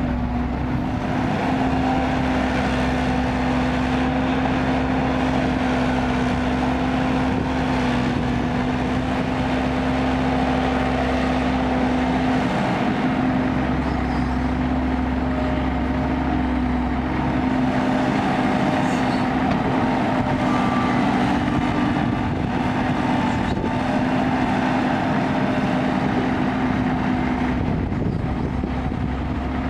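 Kobelco excavator's diesel engine running steadily while it works, with a brief dip and shift in engine pitch near the middle.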